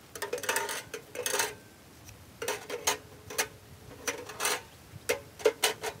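Metal objects clinking and clattering in several short clusters of knocks, each with a brief metallic ring.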